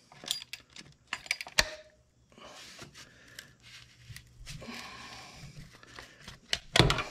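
Vise-grip locking pliers clamped on a seized metal part of an old RV waste-tank gate valve, twisted back and forth to free it. Irregular metallic clicks and knocks, a stretch of scraping in the middle, and a few louder knocks near the end.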